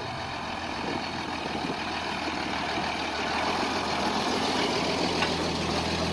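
Mercedes-Benz Unimog's diesel engine running at low speed as the truck draws close, a steady low hum that grows slowly louder.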